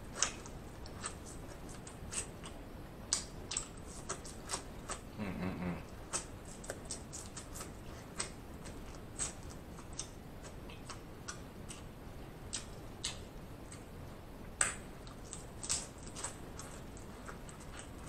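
Close-miked chewing and lip smacking while eating snow crab meat: irregular wet clicks and smacks, with a brief low hum about five seconds in.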